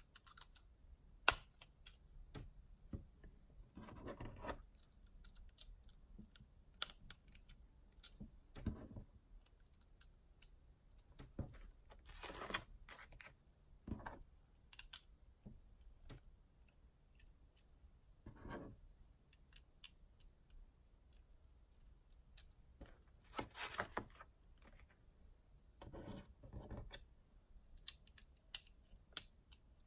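Plastic LEGO bricks being handled and pressed together on a wooden tabletop: scattered soft clicks and brief scrapes, with one sharper click about a second in.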